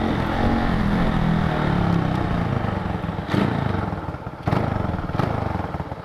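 Motorcycle engine with an aftermarket USA Racing exhaust running under steady throttle, then easing off with the pitch falling, with three sharp pops on the overrun about three, four and a half and five seconds in.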